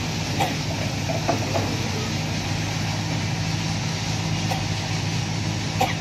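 Kobelco hydraulic excavator's diesel engine running steadily at a low, even pitch, with a few sharp metallic knocks, the loudest near the end.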